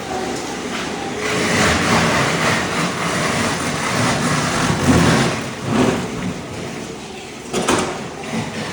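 Ride-on floor scraper running, its blade scraping thin-set tile mortar off a concrete slab: an uneven scraping noise that grows louder in the middle, with a sharp knock near the end.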